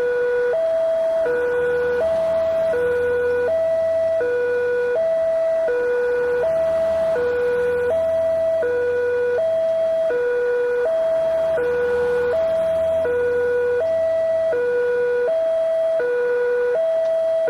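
Railway level-crossing warning siren sounding a steady two-tone alarm, a lower and a slightly higher note alternating evenly about every three-quarters of a second.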